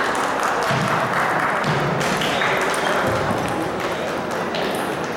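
A celluloid-type table tennis ball struck by paddles and bouncing on the table: a few sharp, irregularly spaced clicks over the steady murmur of a busy sports hall.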